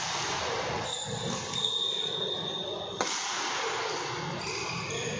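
Indoor badminton hall during a rally: voices of onlookers and players over a steady hall din, with a sharp racket strike on the shuttlecock about three seconds in.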